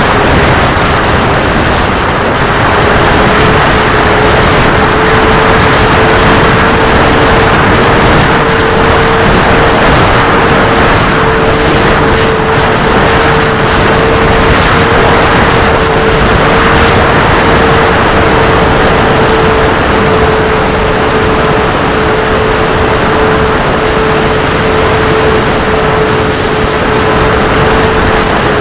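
A small motor running at a steady pitch, rising slightly in the first few seconds and then holding, under loud wind noise buffeting the microphone.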